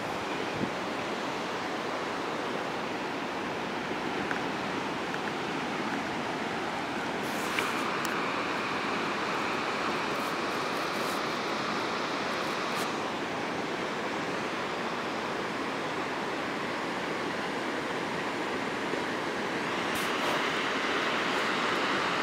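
Steady rushing of ocean surf, growing brighter and hissier for several seconds about a third of the way in and again near the end.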